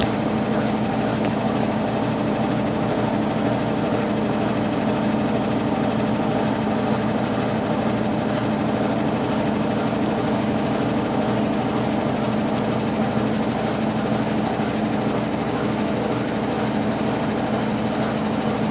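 Consul Facilite 10 kg washing machine in its wash stage, the motor turning a Brastemp BWL09 agitator: a steady mechanical hum.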